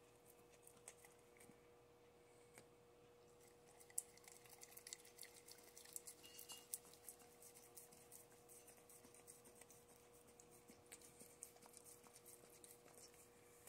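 Faint, irregular wet clicks and smacks of a dog licking at peanut butter on its nose, over a faint steady hum. The clicks grow frequent about four seconds in, with one sharper click there.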